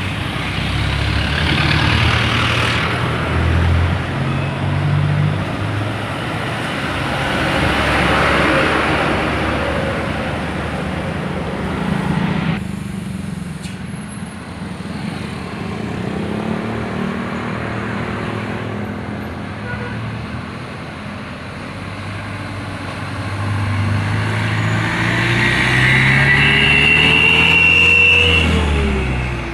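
Heavy trucks running along a highway: engine drone and road noise swell and fade as the vehicles pass. The traffic goes quieter for a while midway, then builds again near the end with an engine note that rises and falls.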